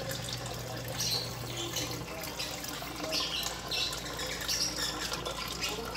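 Water pouring from an outlet pipe into a glass aquarium tank, trickling and splashing unevenly. A low hum stops about two seconds in.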